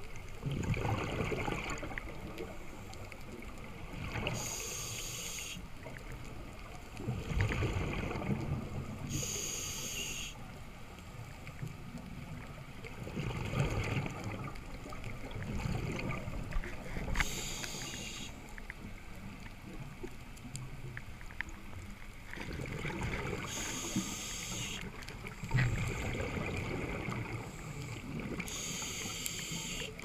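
Scuba diver breathing through a regulator underwater: a short hiss on each inhale, about every five to six seconds, alternating with low rumbling bursts of exhaled bubbles.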